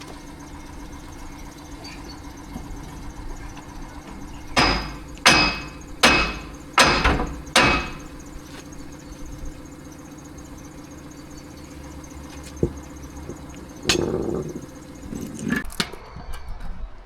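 Hammer blows on the narrowboat's metal tiller stock as it is knocked free of the rudder: five loud, ringing metal strikes about three-quarters of a second apart, then a few lighter knocks near the end. A steady engine hum runs underneath.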